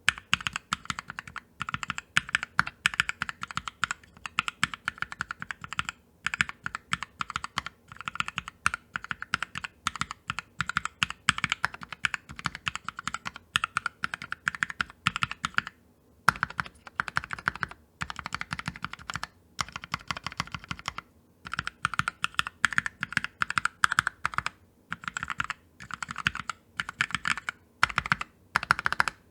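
GK21S mechanical numpad with Kailh Cream Chocolate switches being typed on, in runs of rapid key presses broken by short pauses.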